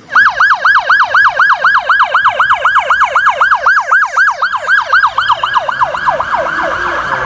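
Police car electronic siren in yelp mode, its pitch sweeping rapidly down and up about five times a second. Near the end the sweeps speed up and run together.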